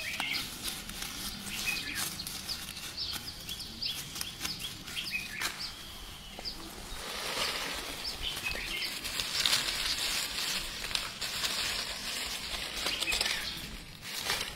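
Small birds chirping and twittering repeatedly, with leaves rustling and brushing as someone walks through undergrowth, the rustling strongest in the second half.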